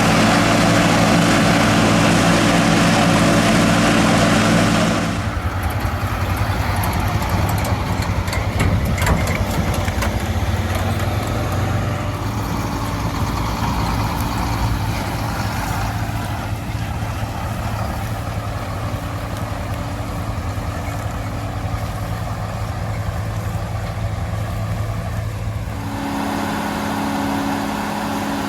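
John Deere 4440's turbocharged six-cylinder diesel running steadily under load, powering a Sperry New Holland 782 forage harvester chopping corn. The engine and machinery sound changes abruptly about five seconds in and again near the end.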